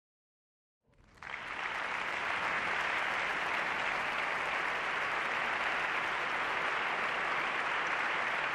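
Large audience applauding steadily, the clapping starting about a second in.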